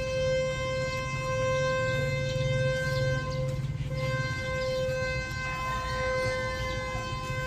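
Ferry's horn sounding a long, steady blast at one unchanging pitch, dipping briefly about halfway through, over a low rumble.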